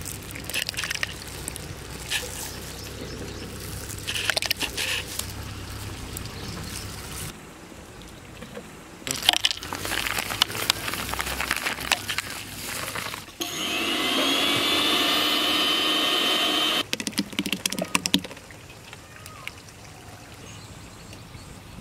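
Electric blender motor starting up with a short rising whine, then running steadily for about three seconds while it blends mango, curd, sugar and ice. Clatter and knocks of the jar being handled come before and after it.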